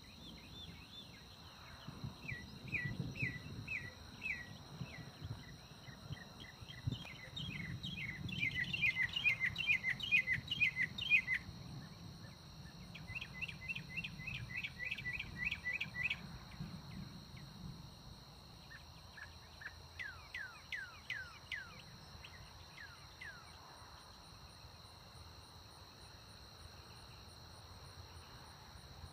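Night insect chorus of crickets trilling steadily, with a bird singing four runs of quick down-slurred notes. A low rumble of distant thunder swells and fades under them in the first half.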